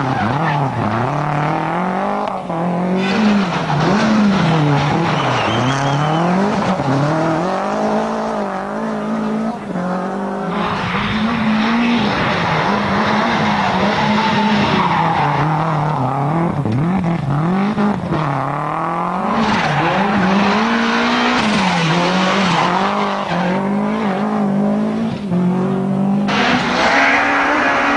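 Toyota Celica GT-Four ST165's turbocharged 2.0-litre four-cylinder engine driven hard, the revs climbing and dropping again and again. Stretches of loud hiss ride over the engine a third of the way in and again past the middle.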